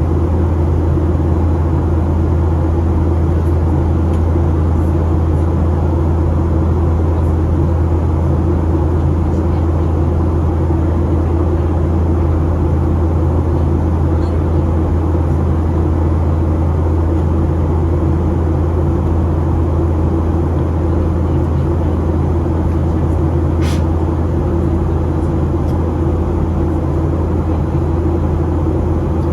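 Steady cabin drone of a Boeing 737-800 in flight: engine and airflow noise with a strong low hum. A single short click comes near the end.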